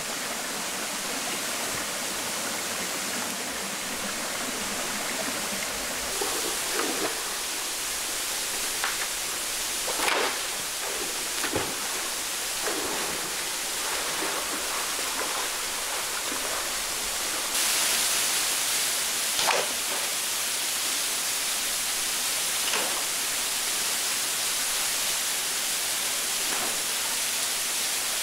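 Steady rush of a small jungle stream and waterfall running over rocks, with a few brief sharper sounds on top. The rush grows a little louder and hissier a little over halfway through.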